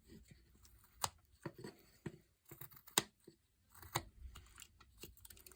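Swiss Army knife blade whittling basswood: short irregular slicing and scraping strokes with sharp clicks as the blade cuts up to a stop cut and chips come away.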